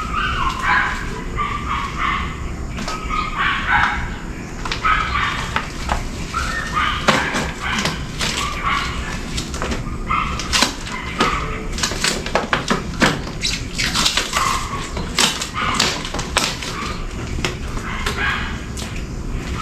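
A dog whimpering and yipping in the first few seconds, then a long run of sharp clicks and crackles from handling and scraping things by hand.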